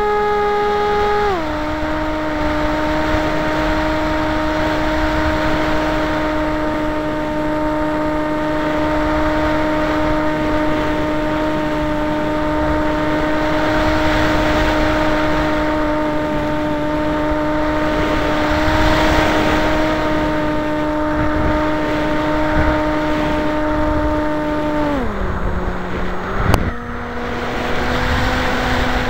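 RC flying wing's motor and propeller running in flight, heard from an onboard camera: a steady pitched drone that drops in pitch about a second in, sinks lower near the end and then picks up again, over wind rushing past the microphone.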